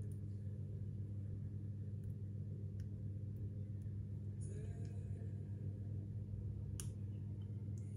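A steady low hum throughout, with a few faint clicks and a soft rustle as pieces of white asparagus are laid by hand onto a pizza base in its metal pan.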